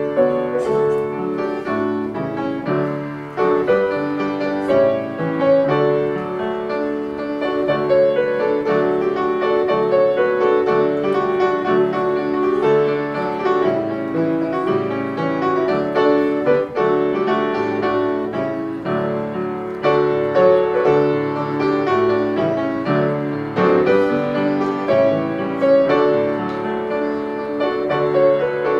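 Solo grand piano playing a continuous stream of melody notes over chords.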